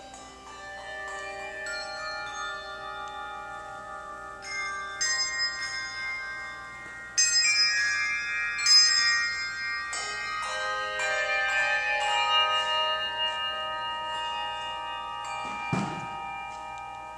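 A handbell choir ringing: many sustained bell tones overlapping and ringing on, with new groups of bells entering about four, seven and ten seconds in, the one at seven seconds the loudest.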